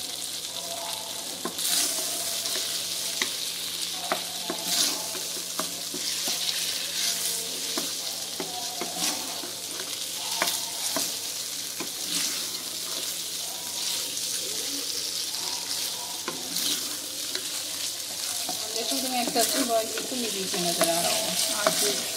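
Diced raw chicken sizzling in hot oil in a non-stick wok, stirred steadily with a wooden spatula that scrapes and knocks against the pan now and then.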